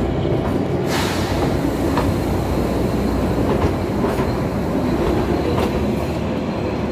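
Kalka–Shimla narrow-gauge toy train running at speed, a steady rumble and rattle of carriage and wheels on the track, with a few sharp clicks as the wheels pass over rail joints. Heard from the open carriage doorway.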